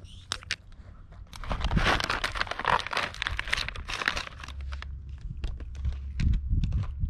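Plastic packaging crinkling and rustling as it is handled: a dense run of crackling for about three seconds starting a second or so in, then scattered single crackles.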